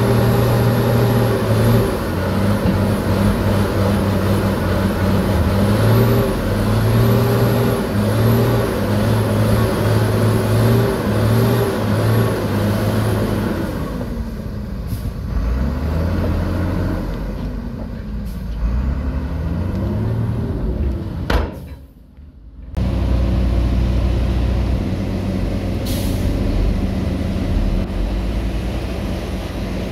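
Heavy diesel dump truck engine running at raised revs while tipping its load of dirt, with a wavering beat. About halfway through, the engine speed sinks and climbs again several times. The sound briefly cuts out after about two thirds, then a steady engine sound resumes.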